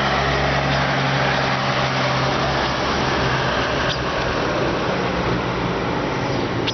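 A motor vehicle's engine running over steady traffic noise. The low engine hum eases about halfway through and comes back near the end.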